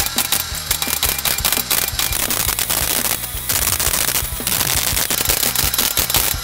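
Electric arc welder crackling and spitting while tack-welding steel exhaust tips, in short runs with a couple of brief pauses about three and four seconds in. Background music plays underneath.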